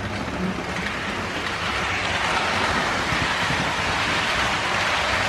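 Model HST train running past close by on the layout's track: a steady rushing noise of wheels on rail and the running motor, growing louder about two seconds in as the train comes alongside, then holding.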